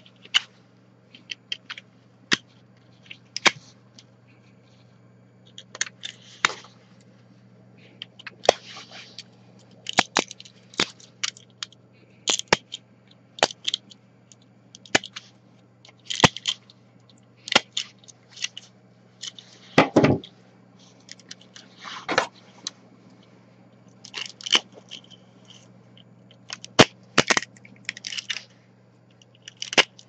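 White ABS support material cracking and snapping as it is picked and pried off a 3D-printed buckle with pliers and a knife: irregular sharp cracks and crackles, the loudest about two-thirds of the way in. A faint steady low hum runs underneath.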